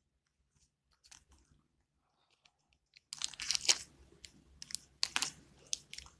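Clear adhesive tape and plastic drinking straws crinkling as the tape is wrapped and pressed around the straws. Faint clicks come first, then two loud spells of crinkling, about three and five seconds in.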